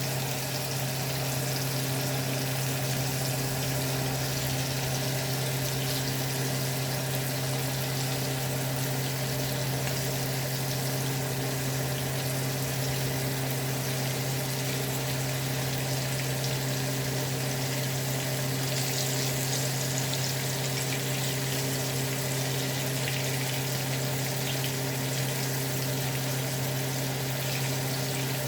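Shrimp and fish sizzling steadily in hot frying oil, over a constant low electrical hum.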